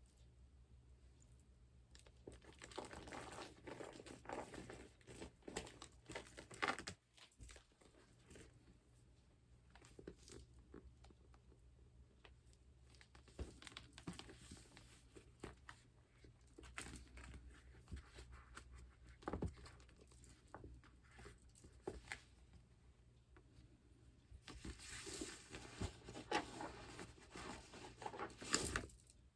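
Glossy vinyl-like surface of vintage patent leather handbags being handled close up, giving soft, sticky crinkling and rubbing with a few sharp clicks. It is busier near the start and again near the end.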